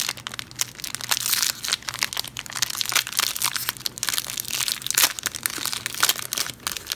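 Crinkling and crackling of a Panini trading-card hanger pack's wrapper being torn open and handled, a dense run of small crackles throughout.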